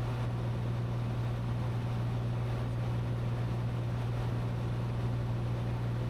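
Cessna 182T's six-cylinder Lycoming IO-540 engine and propeller droning steadily in flight, heard inside the cabin as a constant low hum under an even rush of air noise.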